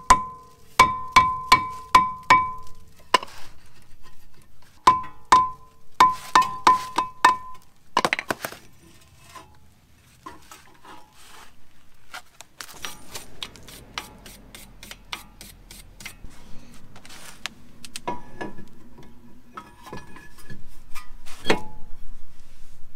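Hammer blows on a rusted cast-iron front brake rotor of a 2013 Volvo XC60 to break it loose from the hub, each strike ringing like a bell, about a dozen in the first eight seconds. After that come quieter handling sounds and a few lighter ringing clinks of metal near the end.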